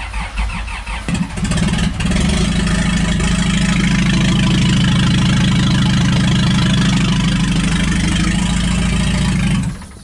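CareLift telehandler engine starting and running, rough for the first second or two, then loud and steady until it is shut off near the end. It sounds different because the exhaust has come loose: the owner thinks backing over a mound of snow knocked the pipe off the exhaust manifold.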